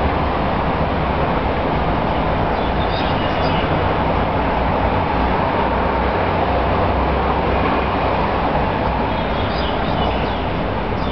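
Steady, even background noise with no speech, carrying a few brief faint high chirps about three seconds in and again near the end.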